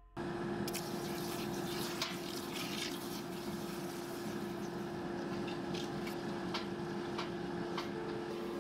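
Red-hot 1045 steel hammer head quenched in a barrel of water. The water boils and sizzles against the glowing steel with scattered crackling pops, starting abruptly as the steel goes in.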